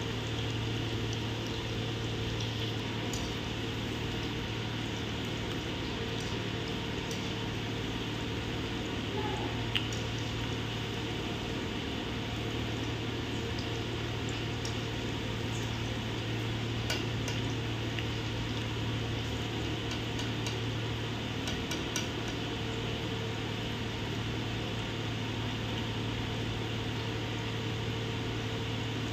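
Potato-and-onion pakoras deep-frying in hot oil in a steel kadhai: a steady sizzle with scattered small pops over a steady low hum. A few times a wire skimmer clicks against the pan as the fritters are turned.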